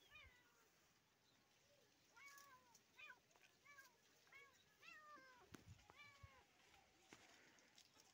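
A domestic cat mewing faintly: a quick run of about ten short meows, starting about two seconds in and stopping around six and a half seconds.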